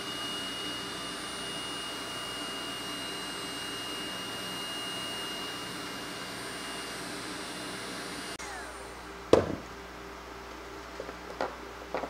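Cordless DeWalt heat gun blowing steadily with a thin high whine while shrinking heat-shrink tubing onto a cable end. It stops abruptly about eight seconds in, and a single sharp knock follows about a second later.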